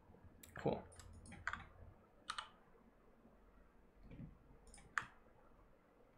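Faint, irregular clicks of a computer keyboard and mouse, a few quick presses in the first couple of seconds and a few more near the end.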